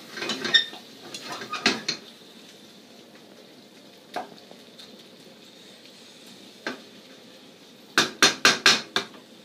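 Wooden spoon stirring chicken gizzard curry in a non-stick frying pan and knocking against the pan: clattering in the first two seconds, two single knocks in the middle, and a quick run of about five sharp knocks near the end. Beneath this the curry sizzles faintly over a low gas flame.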